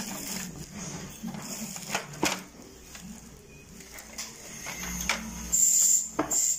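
Small plastic clicks and rustling of handled wires as cable connectors are pushed onto a sewing machine's circuit board, with a few sharp clicks and a brief rustle near the end.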